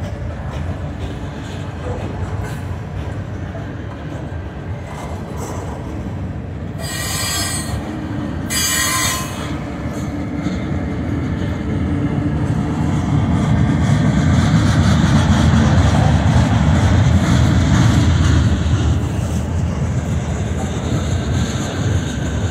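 Freight train cars rolling past a grade crossing: a steady rumble and clatter of wheels on rail that grows louder past the middle, with two brief high screeches about seven and nine seconds in.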